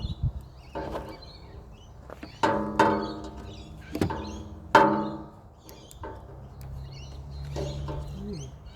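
Parts of a dismantled electric chainsaw being handled on a bench: about five sharp knocks and clinks, several of them ringing briefly.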